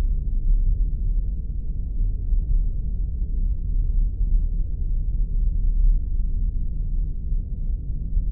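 Science-fiction spaceship sound effect: a steady, deep engine rumble with nothing high in it.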